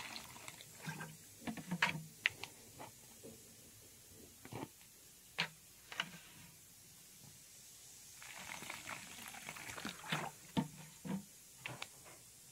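Liquid bleach poured from a plastic jug through a plastic funnel into a bottle, heard in short spells, with a longer pour about eight seconds in. Scattered clicks and knocks of the plastic jug, funnel and bottle being handled.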